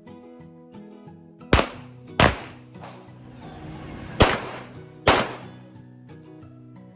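Four handgun shots in two pairs, each pair less than a second apart, the second pair about two seconds after the first, over background music.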